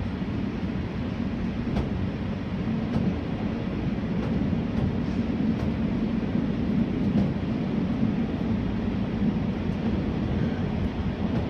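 Running noise of a 485-series electric train heard from inside its front cab: a steady low drone of wheels on rail and running gear, with a few faint irregular clicks.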